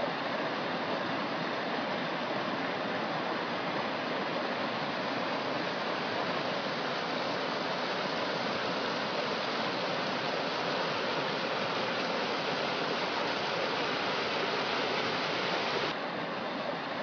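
Steady rushing-water ambience, an even hiss-like wash of water noise with no tone or rhythm, turning slightly duller near the end.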